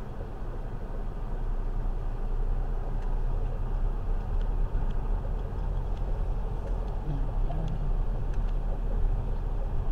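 Steady low rumble of a car on the move, with a few faint clicks.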